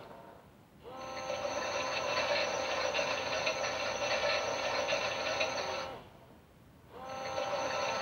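Toy Miele W1 washing machine's drum motor running with a steady whine. The motor stops at the very start and again about six seconds in, for about a second each time, then starts up again with a short rise in pitch, as the drum stops and restarts during the wash.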